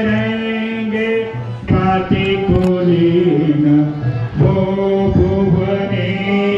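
Male voices chanting a Hindu devotional aarti hymn, singing long held notes that shift in pitch every second or so.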